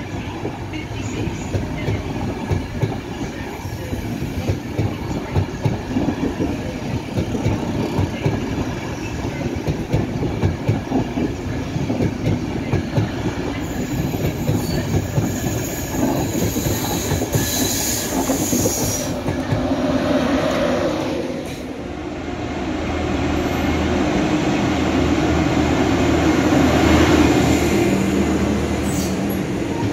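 An Intercity 225 set's Mark 4 coaches roll past, their wheels clattering over the rail joints, with a high wheel squeal for a few seconds past the middle. Then the sound changes to the steady engine drone of a track tamping machine moving along the line.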